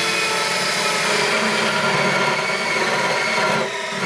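Small cordless drill running steadily under load as it bores a large-diameter bit into plywood, then easing off near the end. The small drill is underpowered for the big bit and cuts very slowly.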